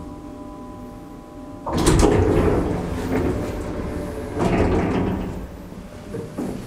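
1980 Schmidt-Medebach lift at a stop: a steady hum cuts off, then the doors open with a loud rumbling slide just under two seconds in. A second burst of door noise follows about four and a half seconds in.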